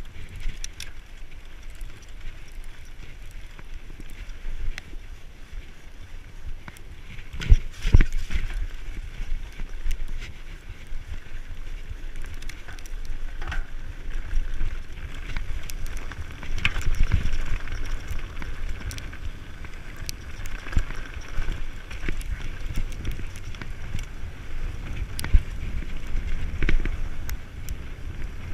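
Mountain bike riding over a rough, stony dirt track: tyres rolling over gravel and rocks with the bike clattering over bumps, under a steady rumble of wind on the microphone. Two hard knocks about seven and a half to eight seconds in are the loudest moments.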